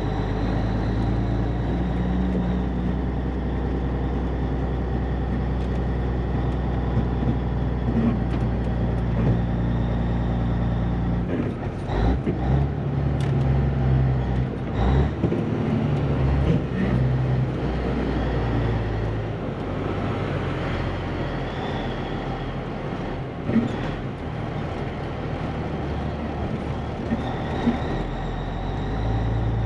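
Caterpillar 3406B diesel in a Peterbilt 362 cabover running at low speed, heard from inside the cab as the truck creeps along. From about 12 seconds in the engine note shifts up and down for several seconds as the driver works the throttle and gears, then it steadies again.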